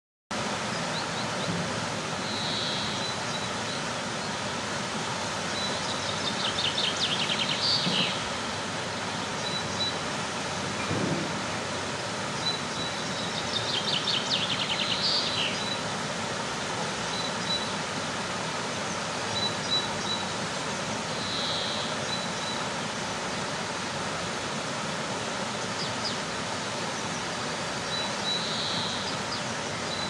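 Small stepped waterfall in a stream rushing steadily, with a songbird singing a rapid trilled phrase twice and giving short high notes now and then.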